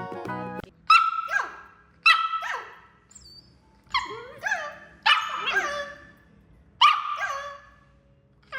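A dog barking: about seven loud barks, some in close pairs, each dropping in pitch at its end.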